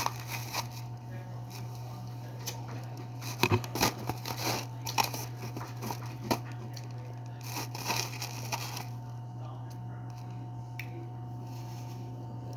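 Chewing and crunching on refrozen chunks of shaved ice, a run of irregular crisp crunches that dies away about nine seconds in.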